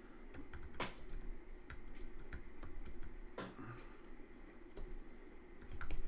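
Typing on a computer keyboard: separate, unevenly spaced key clicks.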